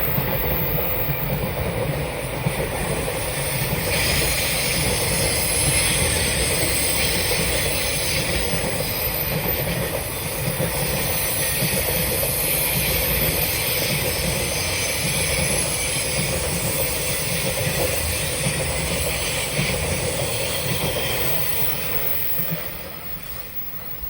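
Freight train's wagons rolling past close by, a steady rumble with hissing wheel-on-rail noise. The sound falls away quickly about 22 seconds in as the end of the train goes by.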